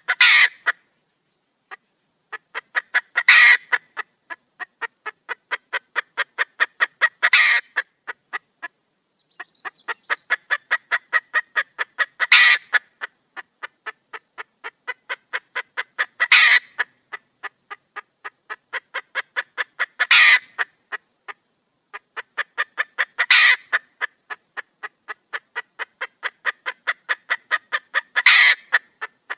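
Red junglefowl hen calling: a run of rapid clucks grows louder and ends in a louder, harsh call. The run repeats about every four seconds. It is a hen's call for a male.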